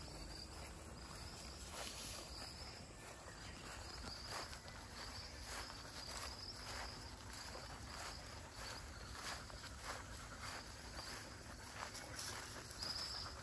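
Insects chirping steadily in a high, thin band, with soft, irregular footsteps through grass.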